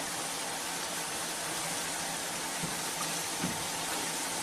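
Steady rushing of water through an automatic rice washing machine, an even hiss with no rhythm and a couple of faint ticks.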